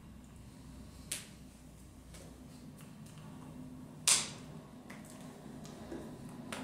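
Two sharp slaps of a signer's hands striking together, a light one about a second in and a louder one about four seconds in, over a low steady room hum.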